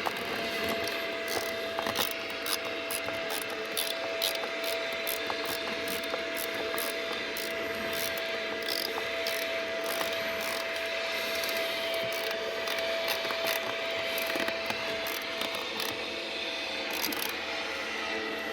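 Irregular clicking and rattling of hand work on a plastic seat trim panel as its pins are pushed and worked toward their holes, over a steady hum that stops near the end.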